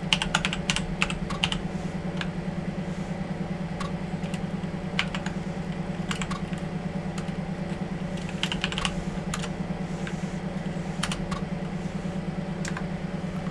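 Keystrokes on a computer keyboard, typed in irregular runs of clicks, over a steady low hum.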